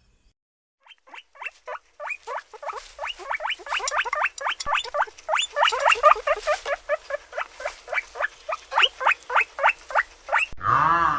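A small animal's rapid, high squeaks, several short rising notes a second, going on for about nine seconds. Near the end a loud honking call breaks in.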